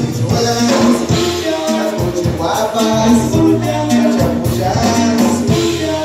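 Latin American dance music with a singer over a steady beat of percussion and shaker.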